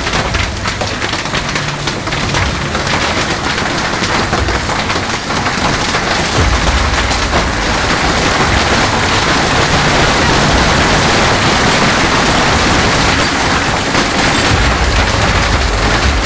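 Hailstorm: a dense, rapid clatter of hailstones striking over a steady roar of heavy precipitation, the separate hits standing out most in the first few seconds.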